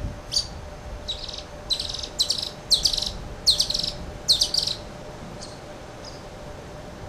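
Pied kingfishers calling: a run of sharp, high, chattering calls, several in quick succession over the first few seconds, then trailing off to a couple of faint notes.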